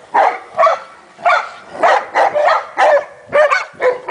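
Leonbergers barking in quick, repeated play barks, about two a second, as they wrestle.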